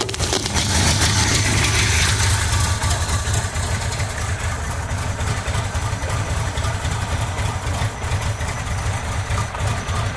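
Flooded VW Vanagon flat-four engine running steadily with the throttle held wide open, being brought back while its injectors are plugged back in and its timing adjusted by hand. A steady hiss sits over the engine.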